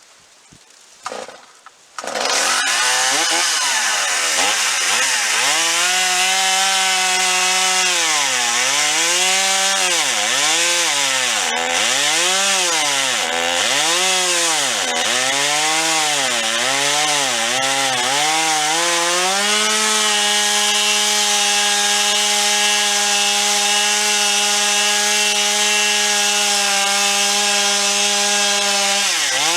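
Stihl MS 250 two-stroke chainsaw starting about two seconds in and cutting wood: its engine pitch sags and recovers about once a second as the chain bites, then holds steady at high revs for the last third, dipping briefly at the very end.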